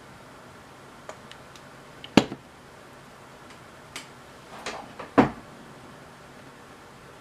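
Handling noise from working inside the camera: several sharp clicks and knocks, the loudest two about two and five seconds in, over a faint steady hiss.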